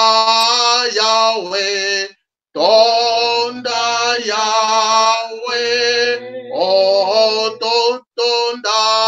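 A man's voice singing unaccompanied in a slow, chant-like hymn, holding long notes that step between pitches, with short breaks about two seconds in and near the end. Heard through a video call's audio.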